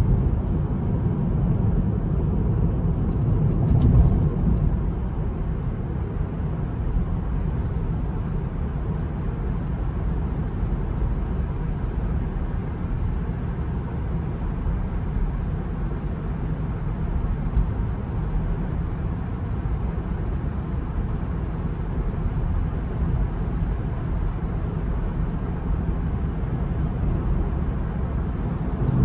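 Steady low road rumble of tyres and wind heard inside the cabin of an electric Tesla cruising at highway speed, about 50 mph, with no engine sound. A brief louder swell comes about four seconds in.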